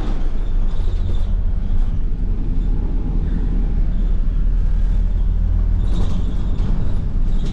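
London bus running, heard on board: a steady low engine and road rumble, with a brief rise in higher rattle and hiss about six seconds in.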